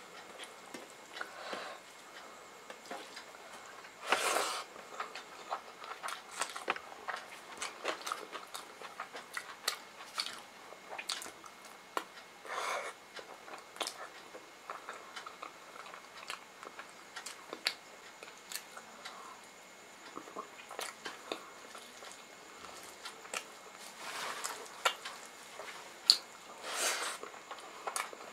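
Close-up eating sounds: wet chewing and lip smacks as rice and curry-soaked pakoda are eaten by hand, with fingers squishing rice into gravy. A few louder bites stand out, about four seconds in and near the end.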